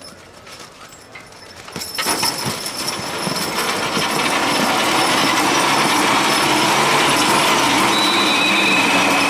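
Team of draft horses hitting and dragging a weighted pulling truck: a few soft hoof knocks, then about two seconds in a sudden loud, steady grinding rush as the load moves, holding to the end.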